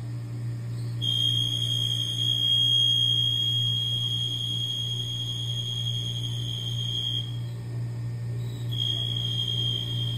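Tormach 8L CNC lathe turning 17-4 stainless steel: a steady high-pitched squeal from the tool in the cut, which stops about seven seconds in and starts again near the end as the tool pecks in and out to break chips. A steady low machine hum runs underneath.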